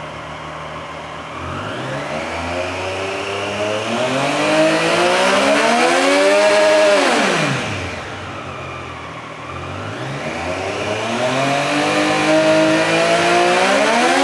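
Triumph Street Triple 765 R's three-cylinder engine idling and then revved twice in neutral, its exhaust note rising slowly for several seconds each time. After the first rev it drops quickly back to idle; the second rev peaks near the end.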